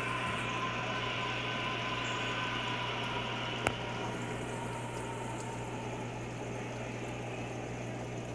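Aquarium filter running: steady water bubbling and trickling over a constant low hum, with one sharp click about three and a half seconds in.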